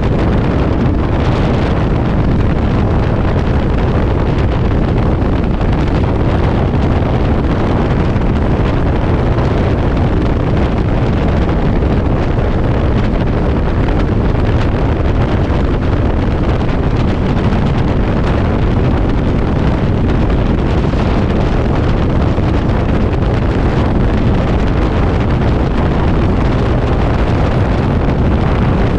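Heavy wind buffeting the microphone, steady and loud, over a Yamaha V-Star V-twin motorcycle riding at speed.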